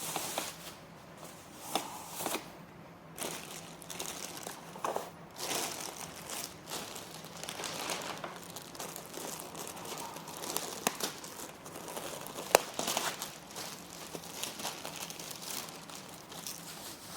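Plastic packaging and bubble wrap crinkling and rustling as it is handled and pulled away, with scattered clicks and knocks.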